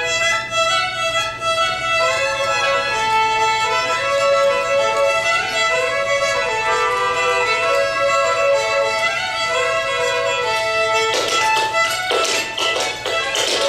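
Fiddle playing a lively melody. About eleven seconds in, a clatter of rapid taps from clogging shoes on the floor joins it.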